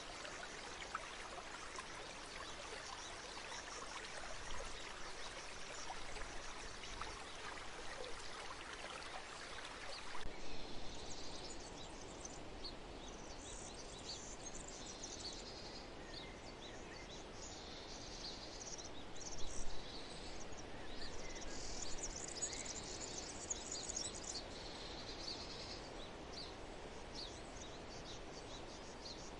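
Steady rush of flowing stream water, cutting off abruptly about ten seconds in to a nature ambience of birds chirping over a soft background hiss.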